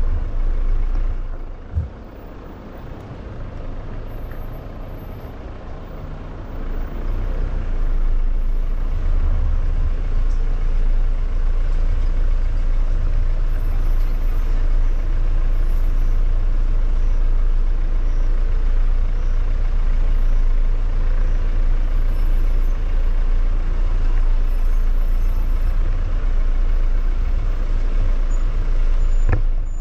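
Jeep SUV crawling down a rutted dirt track: a steady low rumble of engine, tyres and body vibration picked up by a bonnet-mounted camera, with a single knock about two seconds in and the rumble growing louder about seven seconds in.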